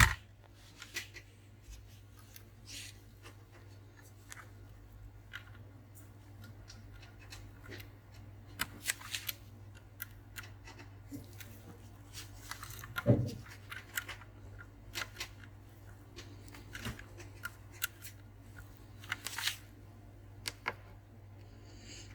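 Small metal tool picking and scraping at a laptop's headphone jack to work a broken pin out of it: scattered light clicks and short scrapes, with one louder knock about 13 seconds in, over a low steady hum.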